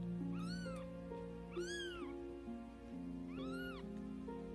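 A very young kitten meowing three times, each a short high cry that rises and falls in pitch, over background music with slow held notes.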